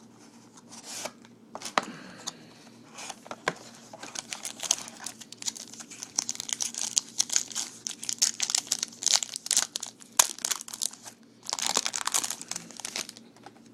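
Wrapping on a trading-card box and pack being torn open and crinkled by hand: irregular crackling rustles with sharp snaps, busiest in the middle and again near the end.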